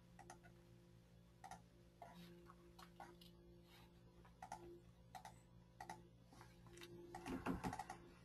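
Near silence with faint, scattered clicks of a computer keyboard and mouse, a quick cluster of them near the end, over a low steady hum.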